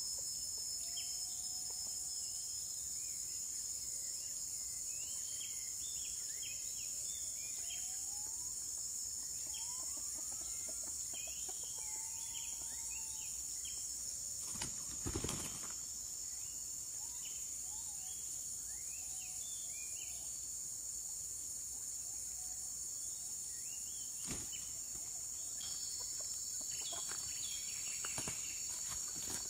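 Forest ambience: a steady high insect drone, many short bird chirps and a few slow whistled calls that rise and fall, with one short loud rustle about halfway through.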